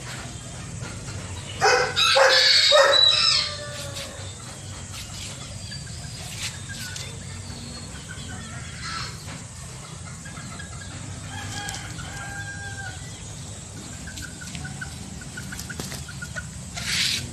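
Serama bantam rooster crowing loudly about two seconds in, followed by quieter clucks and short calls from the chickens. A brief noisy burst comes near the end.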